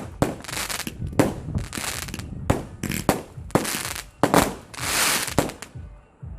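Consumer fireworks going off: a string of about ten sharp bangs, one or two a second, each followed by a hissing crackle, with the longest hiss about five seconds in.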